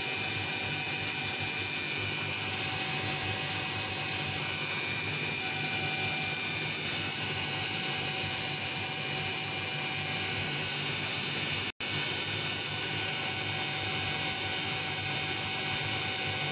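CO2 laser engraving machine running while raster-engraving a photo into MDF: a steady whooshing machine hum with several steady tones in it. It breaks off for an instant about twelve seconds in.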